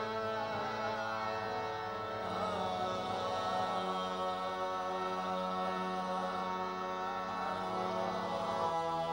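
Qawwali: a lead singer's wordless, wavering vocal improvisation over a steady harmonium drone, with no drum beat.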